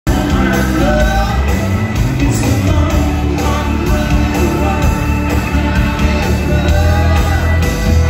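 Live rock band playing, with a man singing over electric guitars, bass and a drum beat about twice a second, heard from among the audience in a large hall.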